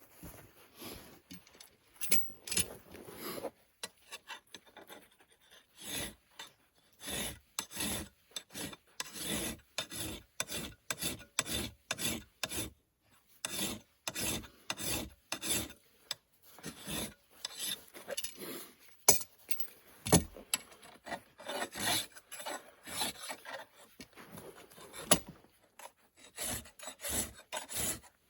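A hand tool rasping across wood in quick repeated strokes, about two a second, in runs with short pauses, and a couple of sharper knocks near the two-thirds mark.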